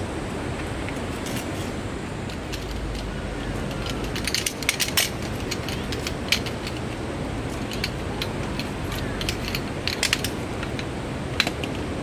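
Scattered sharp clicks and light clinks, bunched in quick clusters about four and a half seconds in and again around ten seconds, over a steady rushing noise.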